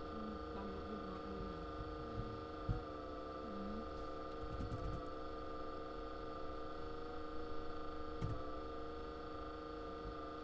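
Steady electrical hum on the recording, several even tones held throughout, with a couple of faint clicks.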